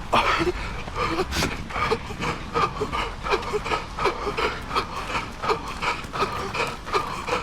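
A runner's hard, rasping breathing in quick, rhythmic gasps, about three a second, in time with his stride while running.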